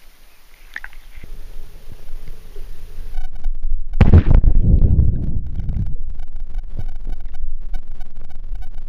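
Water sloshing and gurgling heard with a waterproof camera's microphone plunged underwater: a dull low rumble, a loud muffled surge about four seconds in as it goes under, then muffled, bass-heavy underwater sound.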